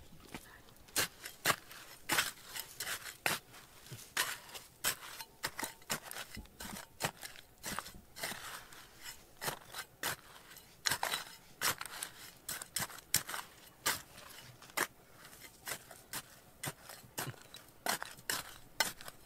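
A run of irregular sharp scrapes and clicks, hard against hard, about two or three a second, some louder than others.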